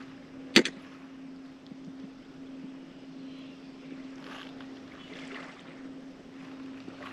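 Kayak on calm water, with a steady low hum throughout. A single sharp knock about half a second in is the loudest sound, and soft swishes follow a few seconds later.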